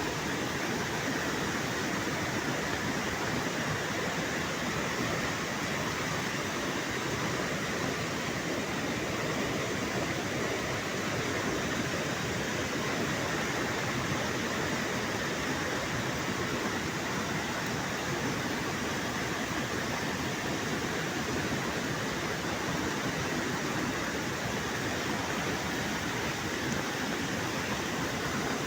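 Heavy rain falling steadily, a dense even hiss without pause.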